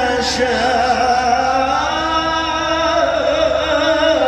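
A reciter chanting the Quran in the melodic mujawwad style, holding one long, ornamented vowel whose pitch winds slowly up and down.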